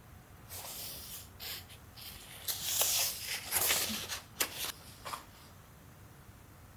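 Rustling and handling sounds: a run of short, irregular scrapes and rustles, loudest in the middle and dying away about five seconds in.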